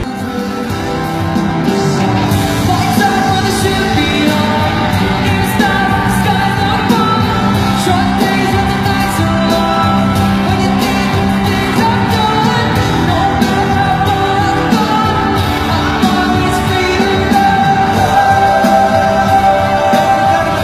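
Pop music with singing and a steady beat.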